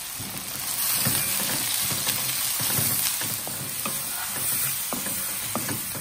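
Sliced onions sizzling in hot oil in a stainless steel kadai, stirred with a spatula that scrapes and clicks against the pan now and then. The sizzle grows louder about a second in as the onions are turned.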